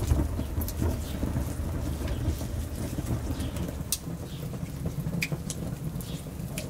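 Open wood cooking fire crackling over a low, steady rumble, with scattered sharp pops.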